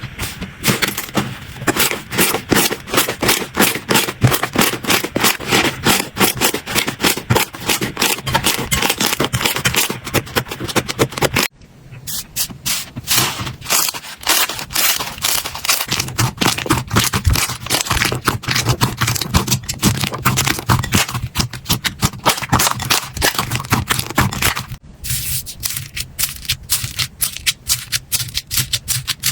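Slime being squished and pressed, giving a dense run of crackling, popping clicks. The sound breaks off abruptly and starts again twice, about eleven seconds in and near twenty-five seconds.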